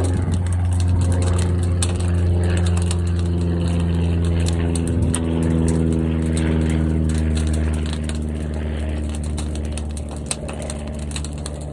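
Fire in a large kiln: a loud, steady low rumble with a steady hum of several tones over it and scattered crackles. It eases slightly about eight seconds in.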